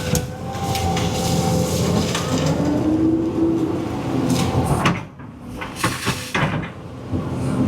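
Cat 320 EL hydraulic excavator at work: the diesel engine and hydraulic pump hum rises and falls in pitch as the boom and bucket are loaded, with sharp metal knocks and creaks from the bucket and linkage. The sound dips briefly about five seconds in.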